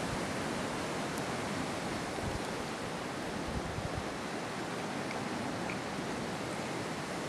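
Steady rush of wind outdoors, an even noise with no distinct sounds standing out.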